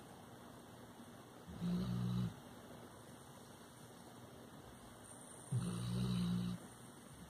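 Labrador retriever snoring in its sleep: two snores about four seconds apart, the second a little longer.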